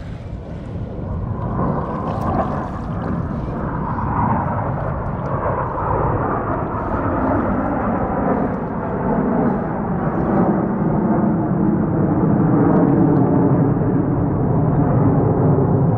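Jet roar from a formation of Blue Angels F/A-18 Super Hornets flying overhead, a deep rumble that grows steadily louder as they loop.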